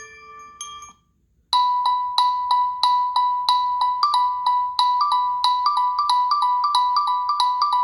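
Google Pixel 3a ringtones. One chime ringtone dies away in its last ringing notes and stops, and after half a second of silence the next ringtone starts about a second and a half in. It is a quick run of short percussive notes, about three a second, at first all on one note, then alternating with a note just above it.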